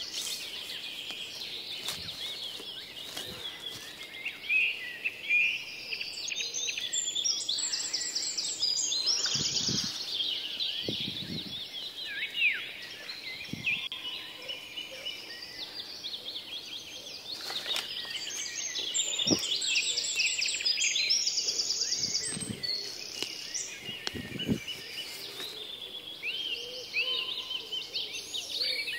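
Several forest birds calling and singing over one another, with fast chattering trills now and then. A few low thumps and rustles of movement close to the microphone sound underneath.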